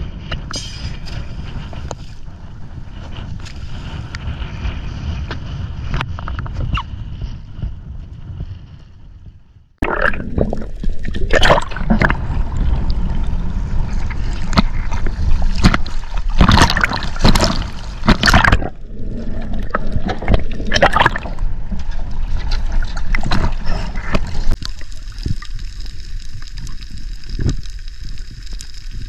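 Boat on the water: a steady low rumble with wind on the microphone, fading out about ten seconds in. It then cuts to loud rushing and splashing water with repeated sharp splashes, which settles to a steadier wash near the end.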